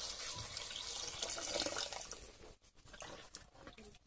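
Water poured from a metal vessel into a pot of mutton curry, splashing into the liquid. The pour tails off about halfway through.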